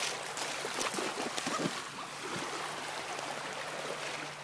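Shallow seawater splashing and lapping at the shoreline: irregular small splashes through the first two seconds, then a steadier wash of water.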